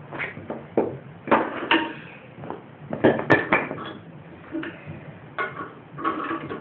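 Irregular metal clanks and knocks, about a dozen, from tools working at a stuck part under a lawn mower, with the loudest clatter about three seconds in.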